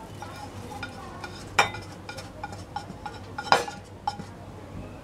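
A spatula scraping and clinking in a nonstick kadhai as dry-roasted dried shrimp are scooped out into a container. Two sharp knocks ring out, about a second and a half in and again about three and a half seconds in.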